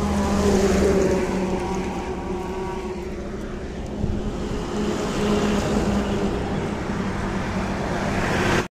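A car driving on the road: a steady engine hum and road noise, with a rising swell of traffic just before it cuts off suddenly at the end.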